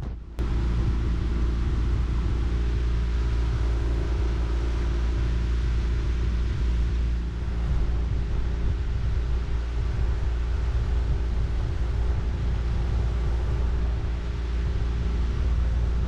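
Honda BF15 two-cylinder four-stroke outboard motor running steadily under way, pushing an inflatable boat along, with a deep rumble under the engine's hum. It cuts in abruptly right at the start.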